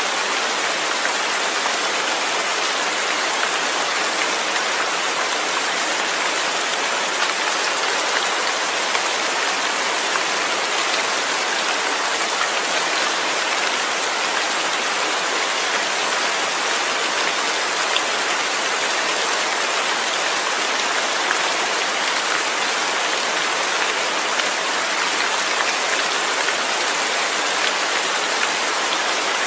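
Steady rain falling, a dense even hiss of drops on a surface with faint scattered patters and no change in strength.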